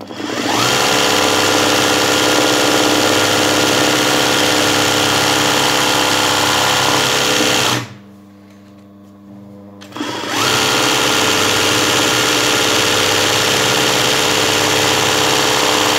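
Sewing machine running at speed, stitching free-motion satin-stitch embroidery. It comes up to speed at the start, runs for about seven and a half seconds, stops for about two seconds, then speeds up again and runs on.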